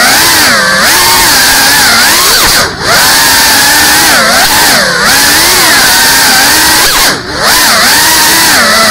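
GEPRC Cinelog35 cinewhoop drone's brushless motors and ducted propellers whining, pitch rising and falling with the throttle. The sound dips briefly twice, about three seconds in and again about seven seconds in, as the throttle is chopped.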